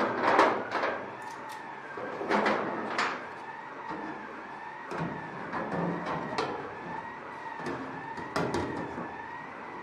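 Clicks, knocks and metal rattles as a thin aluminium inspection cover is pressed into its ring in the wing skin and clecos are set with cleco pliers; the loudest come near the start, around three seconds in and near the end. A siren wails faintly in the background, rising and falling evenly.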